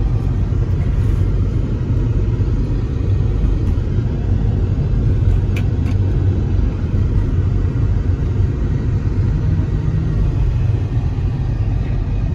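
Steady low rumble of a car's engine and road noise, heard from inside the cabin while it drives up a winding hill road.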